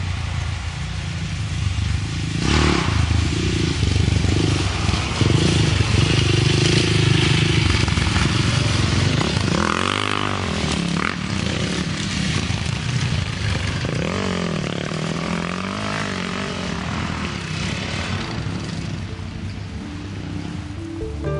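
Off-road dirt bike engines revving as two motorcycles ride across a sandy clearing. The engine pitch rises and falls sharply about halfway through and again a few seconds later as the bikes pass and accelerate.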